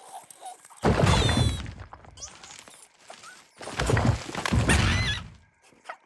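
Two loud crashing impacts, one about a second in and a longer one about four seconds in, with high squeaky chirps over them.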